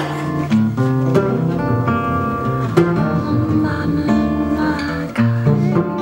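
Jazz trio playing: acoustic guitar picking a melody of plucked notes over a plucked upright bass line.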